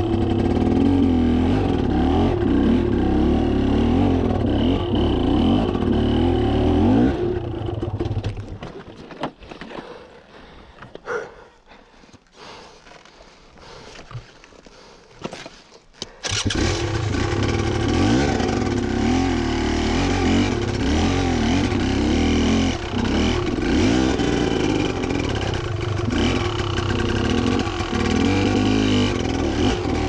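Beta enduro motorcycle engine running with the revs rising and falling quickly on a rocky hill climb. About eight seconds in it dies away, leaving a few knocks and clatter for several seconds. Just after halfway it comes back on suddenly and keeps running with the throttle opening and closing.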